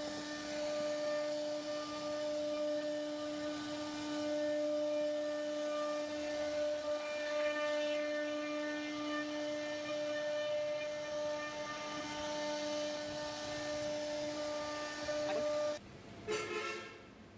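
CNC router spindle running with a steady high-pitched whine and hum while it carves a wooden panel; the whine cuts off abruptly about sixteen seconds in.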